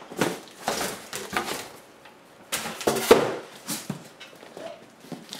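Cardboard boxes handled: an inner box slid and lifted out of a larger shipping carton, cardboard scraping and rubbing in several short bouts, the loudest about three seconds in.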